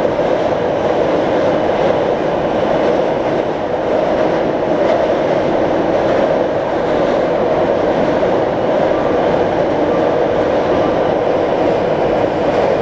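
Taipei Metro C321 rapid-transit train running at steady speed through a tunnel, heard inside the car: a continuous, even rumble of wheels on rail, with a faint thin tone about nine seconds in.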